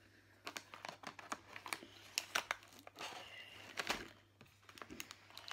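Plastic candy wrappers crinkling and rustling as a hand rummages through a box of sweets and picks one out: a quick, irregular run of small crackles.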